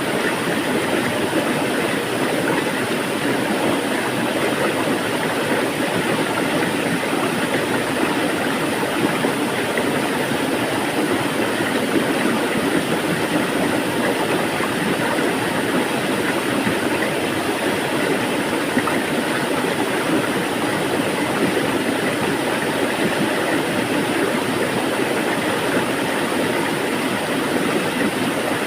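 Water flowing steadily, an even rushing noise that holds the same level throughout.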